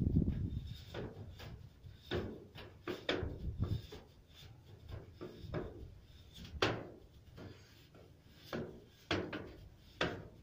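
Repeated scraping strokes of a long-handled tool pushing volcanic ash along roof tiles and out of the roof gutter, irregular, about one or two strokes a second.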